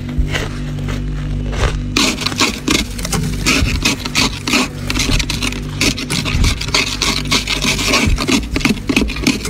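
Thick freezer frost being scraped off the freezer walls in quick, rough strokes, the scraping getting much busier from about two seconds in, over a steady low hum.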